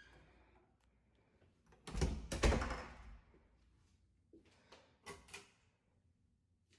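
Wooden closet door being opened: a loud cluster of thumps and knocks about two seconds in, then a few lighter clicks and knocks a couple of seconds later.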